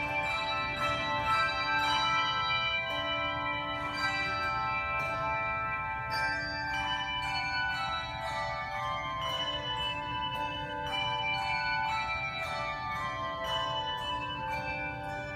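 Handbell choir playing a piece: many tuned handbells struck in turn, their tones ringing on and overlapping into chords.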